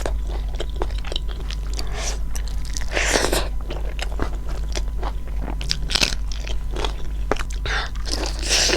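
Close-up crunching and chewing of food by a person eating mukbang-style: irregular crisp bites and chews, over a steady low hum.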